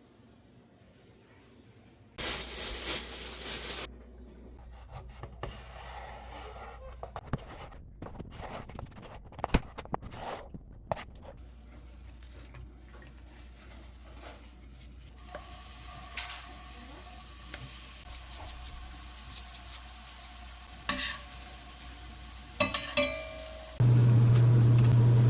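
Cooking in a pan: a loud spell of sizzling about two seconds in, then a steady low hum with utensils clicking and scraping against cookware. A loud low buzz comes in for the last second or two.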